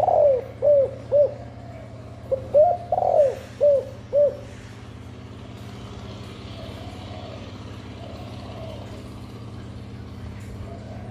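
A female spotted dove's coo series: two runs of short, rounded coos in the first four seconds or so, then fainter coos later, over a steady low hum. This is the coo pattern keepers use to stimulate doves to nest and breed.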